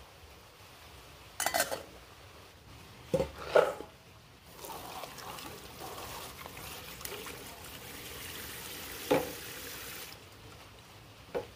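A few sharp metal clanks of pots and bowls, then a kitchen spray faucet running steadily into a metal bowl of vegetables in a steel sink while they are rinsed by hand, shut off suddenly near the end.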